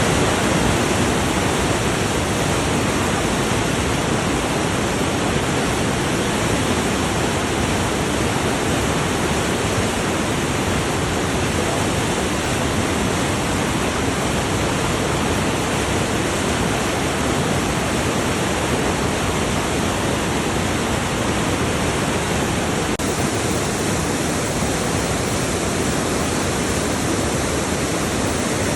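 Waterfall in Norway, a steady, dense roar of falling water.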